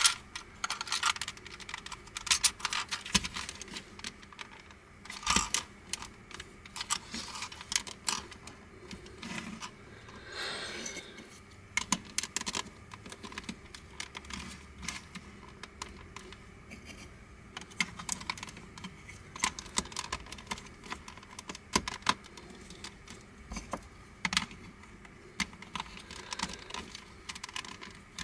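Hard plastic pieces of a Crazy Octahedron Plus twisty puzzle clicking and clattering against one another as it is put together by hand, in irregular runs of light clicks, with a brief rubbing slide about ten seconds in.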